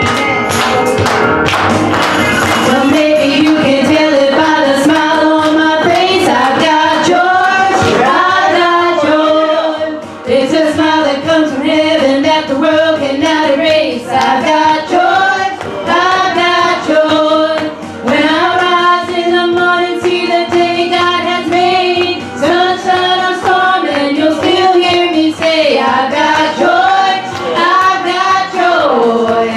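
Women singing a gospel worship song with musical backing, the voices holding long notes and sliding between pitches.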